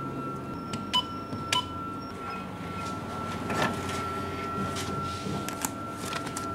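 ATM keypad beeps twice about a second in as the withdrawal amount is keyed, then the NCR machine's cash dispenser runs, feeding a stack of banknotes out through its slot. A steady high tone sits underneath.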